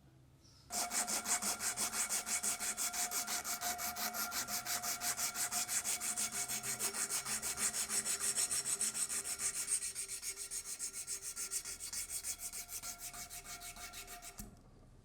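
Steel cleaver blade worked with quick, even back-and-forth strokes against an abrasive, a rhythmic metallic scraping with a faint ringing tone from the blade. It starts abruptly, eases slightly about two-thirds of the way through and stops suddenly near the end.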